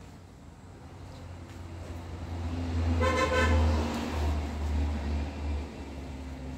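A motor vehicle passes, its low engine rumble swelling and then fading, with a short horn toot about three seconds in.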